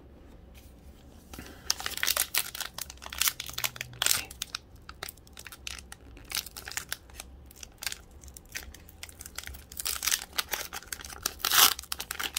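Foil wrapper of an Upper Deck 2020-21 hockey card pack being torn open and crinkled by hand. After about a second of quiet comes a dense run of crackling and ripping, with the loudest rip near the end.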